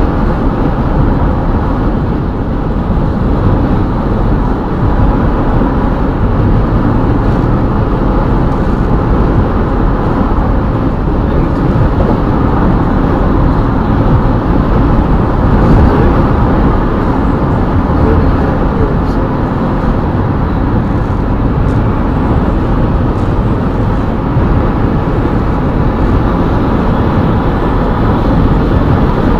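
Steady road noise of a car driving at highway speed, tyre and engine rumble with wind, heard from inside the cabin.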